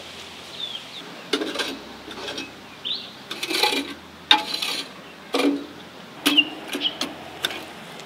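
A string of short, irregular scrapes and knocks from camp cooking utensils against cookware, with a few bird chirps in the background.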